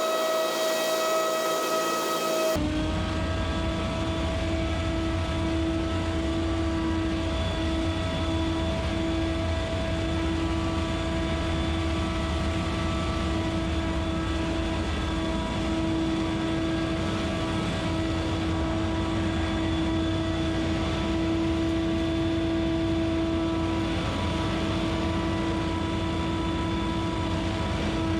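Scag Windstorm stand-on leaf blower running steadily at a constant speed, its engine and blower fan giving a steady hum and whine over a low rumble. The sound changes abruptly about two and a half seconds in, then holds steady.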